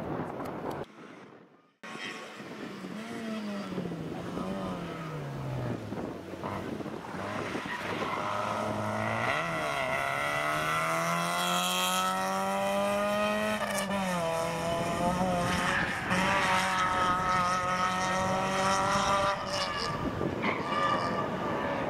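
Citroën Saxo rally car on a stage: the engine note falls in steps as it slows for a bend, then the car accelerates hard past, revs climbing through a gear change, and fades away near the end.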